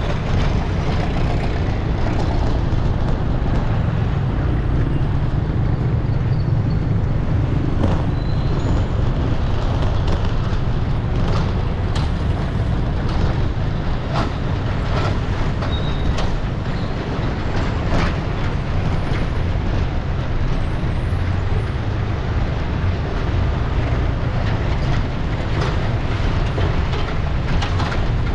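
Steady city street traffic noise: a continuous low rumble of engines and tyres, with a few sharp clicks scattered through the middle.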